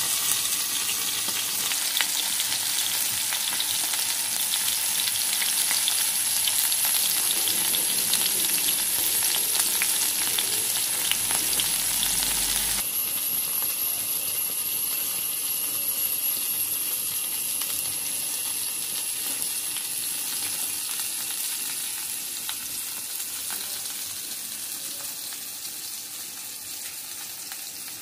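Mackerel and curry leaves shallow-frying in coconut oil in an iron pan: a steady sizzle with small crackles and pops. About halfway through it cuts to a softer sizzle that fades toward the end.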